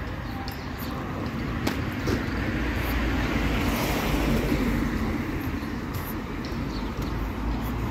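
Street traffic: a car passes close by, its tyre and engine noise swelling to a peak about halfway through and then easing, over a steady low rumble of distant traffic.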